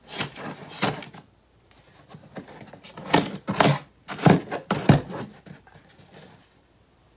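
Packing tape on a cardboard box being slit with a scissor blade and torn free: several short, sharp rasps and rips, most of them bunched in the middle, with the cardboard knocking under the hands.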